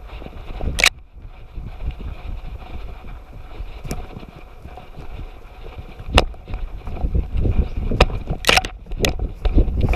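A GoPro on a running dog's chest harness, jostling and buffeted: a steady rumble of wind and rubbing on the microphone, with sharp scrapes and knocks as twigs and grass brush past. The knocks come about a second in, around six seconds, and in a quick cluster near the end, where the noise grows busier and louder.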